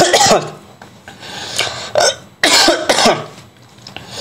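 A man coughing and clearing his throat several times, in short, harsh bursts with pauses between them.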